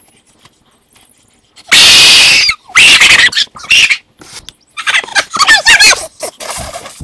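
A young man screaming and hollering without words, very loud, starting about two seconds in with a long yell and going on in a series of warbling, wavering cries.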